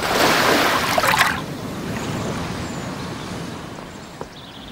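Surf washing onto a sandy beach: a wave surges in over the first second and dies away to a quieter steady wash.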